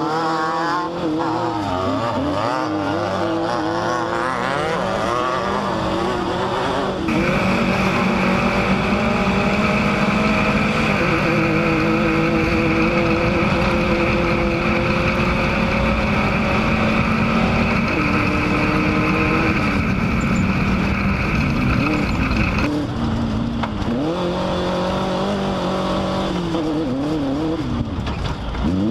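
Off-road race vehicle's engine running hard, its pitch rising and falling as it revs through the gears. About seven seconds in the sound cuts abruptly to a steady, even drone at constant speed, then cuts back to rising and falling revs near the end.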